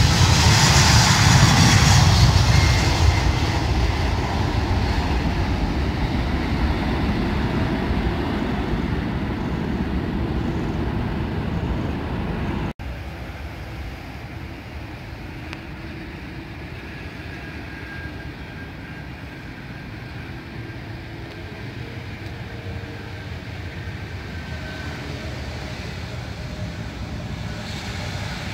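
Jet engines of a British Airways Boeing 777 at takeoff power as it lifts off, loud at first and fading as it climbs away. After a cut about 13 seconds in, the quieter, steady engine noise of a Wizz Air Airbus A321 rolling along the runway after landing, with a faint whine, growing a little louder near the end.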